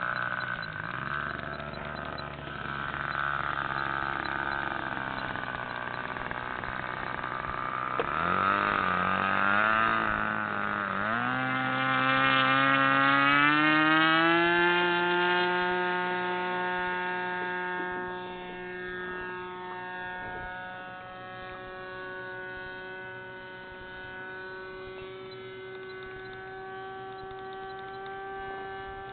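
Motor of a radio-controlled Seamaster model seaplane. Its pitch wavers at first, then rises as it is throttled up through the middle. It then runs at a steady pitch, growing quieter as the plane moves away.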